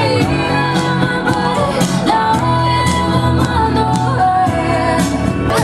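A pop song playing: a singer holds sustained notes over a full band with drums.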